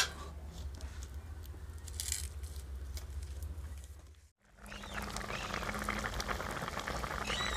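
Thick fish-and-spinach curry bubbling steadily in a large open metal pan, a dense fast crackle of popping bubbles, after a short break about four seconds in. Before that, a sharp click and low handling rumble.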